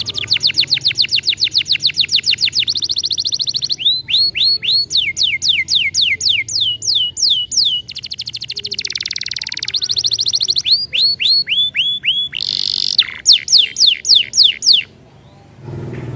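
Domestic canary singing a long, varied song: rapid trills of fast repeated down-sweeping notes, buzzy held passages, and slower falling notes, breaking off suddenly near the end.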